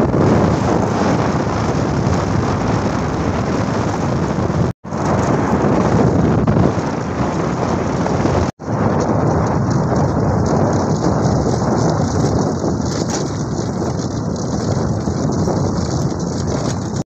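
Heavy wind buffeting the microphone of a phone carried on a moving motorbike: a dense, rumbling rush of noise with no engine note standing out. It cuts out for an instant twice, about five and eight and a half seconds in.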